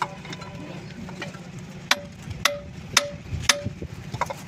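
A metal tool tapping the steel of a truck's lift-axle bracket: four sharp metallic clicks about half a second apart, each with a short ring, starting about two seconds in. A steady low hum runs underneath.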